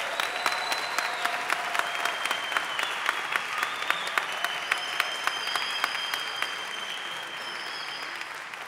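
A large audience applauding, a dense clatter of many hands clapping that slowly dies down near the end.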